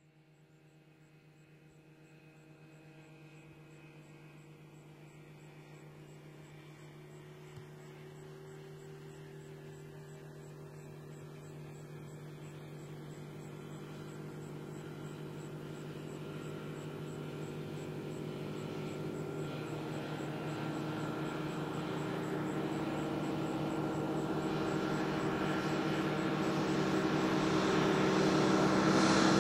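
Fk 12 Comet light-sport biplane's piston engine and propeller droning steadily as the plane flies toward the listener, growing evenly from faint to loud. Its note shifts down slightly about two-thirds of the way in.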